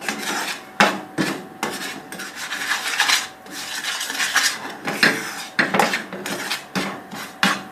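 A spoon scraping and knocking around a frying pan in irregular strokes, about one or two a second, stirring ground garam masala as it roasts in a little oil.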